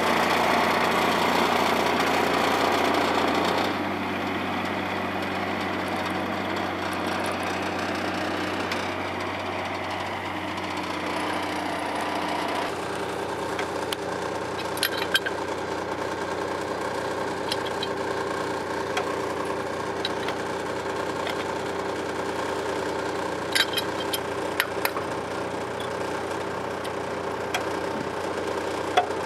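Heavy construction equipment's diesel engine idling steadily, dropping slightly in level a few seconds in, with a few sharp metal clinks from tooling being handled.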